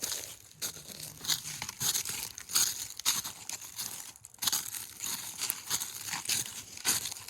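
Dry fallen autumn leaves crunching and crackling, a fresh burst of crunching about every half second.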